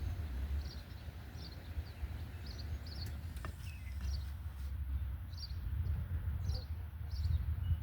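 A small bird chirping repeatedly, short high chirps coming about once or twice a second, over a steady low rumble.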